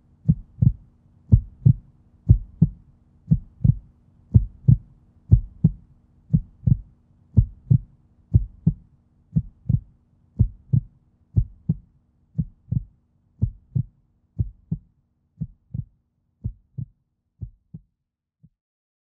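Heartbeat sound effect: paired low thumps (lub-dub) about once a second over a faint steady hum. The beats grow fainter and slow slightly, and the hum drops out about three-quarters of the way through. A last single faint thump comes near the end, then the heartbeat stops.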